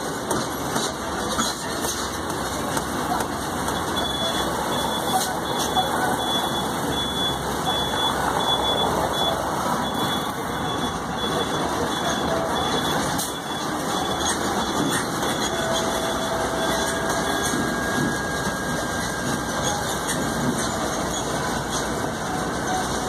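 Ride noise aboard an open-sided tourist road train on the move: the engine running steadily under the road noise of the rolling wheels.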